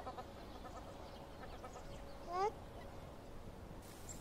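Two short, rising, honk-like animal calls, one right at the start and one about two and a half seconds in, over faint outdoor background.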